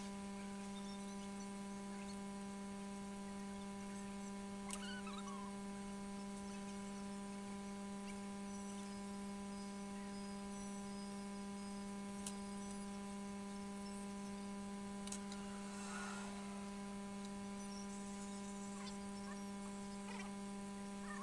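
Steady electrical mains hum with higher overtones, with a few faint light clicks and taps here and there.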